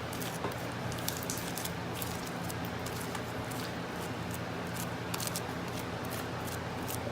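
Hands kneading and stretching homemade glue-and-borax slime: scattered short sticky clicks and squelches.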